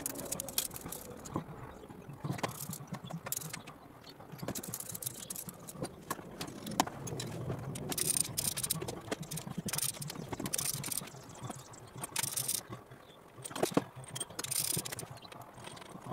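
Ratchet spanner clicking in bursts, with metal clinks and rattles, as the rocker shaft assembly is unbolted and lifted off an MGB engine's cylinder head. The clicks come in irregular clusters and are busiest in the second half.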